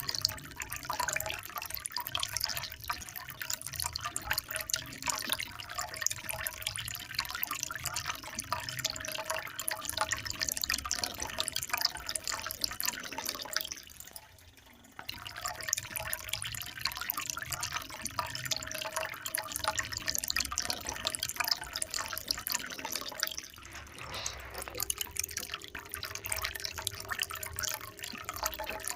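Water trickling and splashing in a steady patter of small drips, falling briefly quiet for about a second halfway through.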